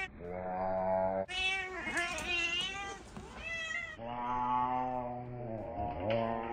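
Domestic cats meowing and yowling for breakfast, a run of long, drawn-out calls, some high and wavering, others low and held.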